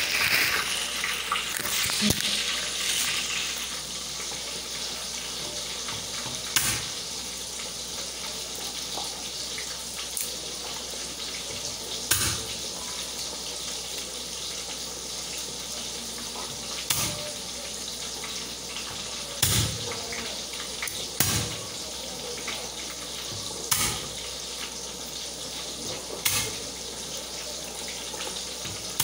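Kitchen knife knocking on the counter or cutting board as food is cut, single sharp knocks every two to three seconds over a steady hiss.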